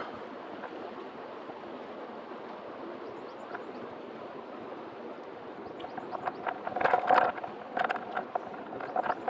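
River water rushing steadily. In the last three seconds come a run of short, irregular sharp sounds, the loudest part.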